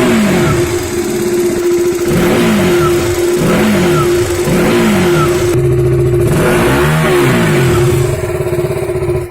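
KTM Duke 200 single-cylinder engine being blipped repeatedly, each rev rising and falling in pitch about once a second. It holds steady for a moment about six seconds in, revs once more, and cuts off suddenly at the end.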